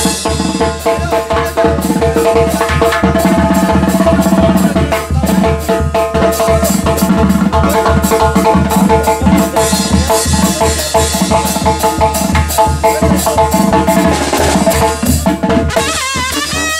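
A Sinaloa-style brass band playing live: sousaphone, trumpets, clarinets and trombone over snare and bass drums keeping a steady beat.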